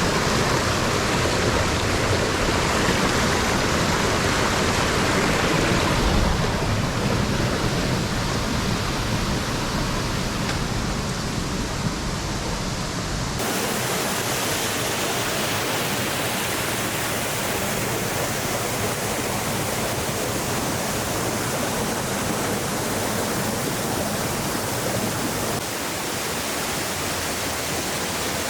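Waterfall rushing: a steady wash of falling water, whose tone changes abruptly about halfway through, losing its low rumble and turning more hissy, and shifts again near the end.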